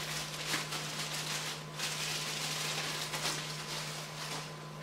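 Clear plastic accessory bags rustling and crinkling as they are handled, over a faint steady low hum.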